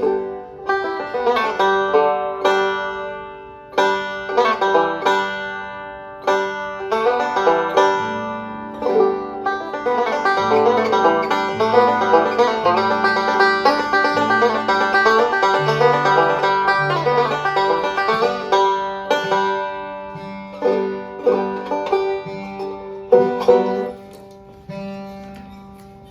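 Bluegrass banjo picking quick rolls of plucked notes, starting and stopping a few times at first, then a continuous run with lower bass notes underneath before it trails off near the end.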